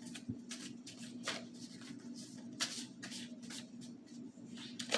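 Tarot cards being shuffled and handled: a run of irregular soft flicks and rustles over a faint steady hum.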